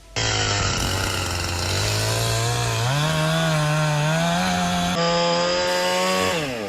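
Two-stroke chainsaw running at high revs; it starts abruptly, its pitch climbs about three seconds in and holds, then drops near the end as it comes off the throttle.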